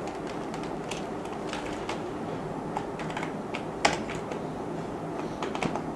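Computer keyboard typing: scattered, fairly soft key clicks over a steady low hum, with one sharper click about four seconds in.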